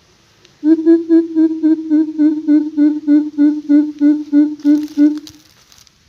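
Coucal calling: a run of about sixteen deep, hollow hoots at about four a second, starting about half a second in and stopping just after five seconds.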